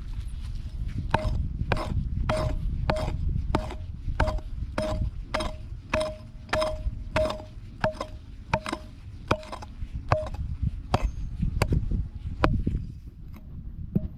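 Metal hand hoe chopping into dry, hard soil in a steady rhythm, about one and a half strikes a second, each blow giving a short metallic ring. The strokes thin out and turn irregular and fainter for the last few seconds.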